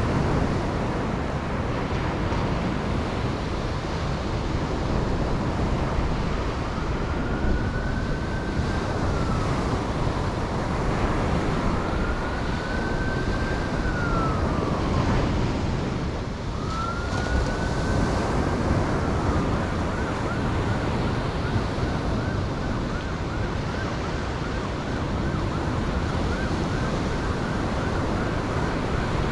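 Ocean surf washing steadily on a beach. Over it, a wailing tone rises and falls slowly three times in the middle, then turns to a fast warble near the end.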